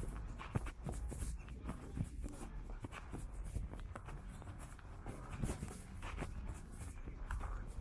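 Footsteps of a person walking on hard paving, about two steps a second, over a steady low rumble.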